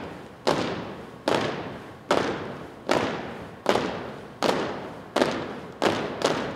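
A drill team stomping in unison on a hardwood gym floor: a sharp thud about every 0.8 seconds, each ringing out in the hall's echo.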